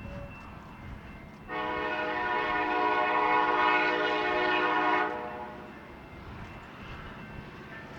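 Union Pacific diesel locomotive at the head of a coal train sounding its air horn in one long blast of a few seconds, several chime notes at once, over the low steady rumble of the locomotive's diesel engine.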